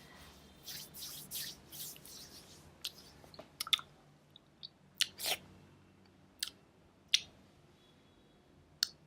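Close-miked mouth sounds: wet clicks and smacks of lips and tongue, coming at irregular intervals. There are a few short hissy sounds in the first two seconds.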